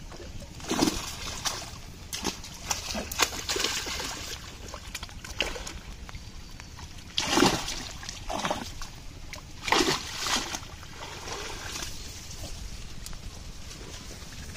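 Water splashing and sloshing as a cast net with fish caught in it is hauled through the shallows and lifted out of a pond, in a string of irregular splashes with the loudest about seven and ten seconds in.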